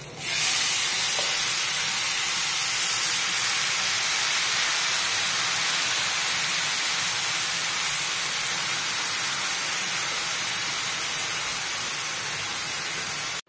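A boiled and blended cabbage, tomato and lentil mixture is poured into hot oil with a spice tempering of garlic, dried chillies, mustard seeds, cumin and curry leaves, and it sizzles with a loud, steady hiss. The hiss starts abruptly as the liquid hits the oil.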